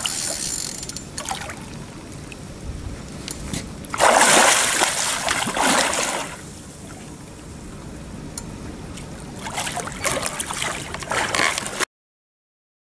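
A hooked wels catfish thrashing and splashing at the surface beside a boat, the water churning in irregular bursts, loudest for about two seconds starting some four seconds in, with more splashes near the end before the sound cuts off abruptly.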